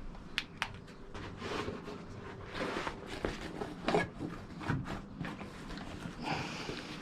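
Scattered light knocks, clicks and rustles of someone gathering up handheld lights and shifting about on a wooden platform, with no steady sound beneath.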